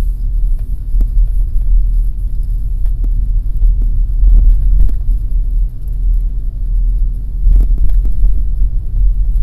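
Daihatsu Taft kei car driving, heard inside the cabin: a steady low road and engine rumble with a few light knocks.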